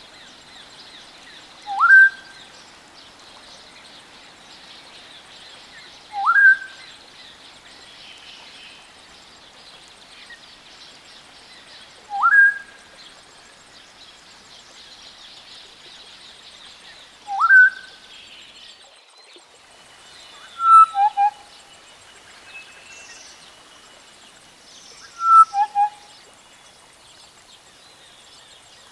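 Western black-headed oriole calling: four single clear whistles, each sliding sharply upward, about five seconds apart, followed by three repeats of a short phrase of one higher whistle and two quick lower notes.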